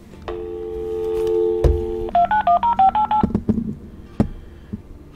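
A telephone's dial tone comes through its speaker for nearly two seconds. Then about ten touch-tone keypad beeps dial out in quick succession. A sharp click sounds just before the beeps and another about four seconds in.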